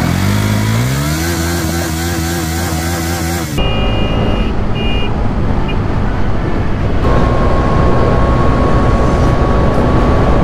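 Bajaj Dominar 400 motorcycle engine accelerating, its pitch rising and then holding steady. About three and a half seconds in it gives way abruptly to the rush of wind and road noise of riding at speed, growing louder near the middle.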